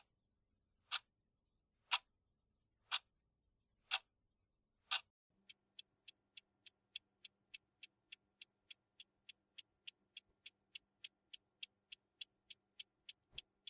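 Clock-ticking sound effect: sharp ticks at one a second for about five seconds, then speeding up to a quicker steady run of about three or four ticks a second.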